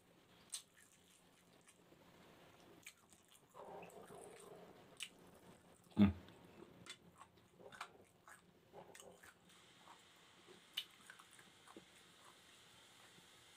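Close-up mouth sounds of a person biting and chewing barbecued chicken gizzard off a bamboo skewer and eating rice by hand: scattered wet clicks and smacks, with one louder thump about six seconds in.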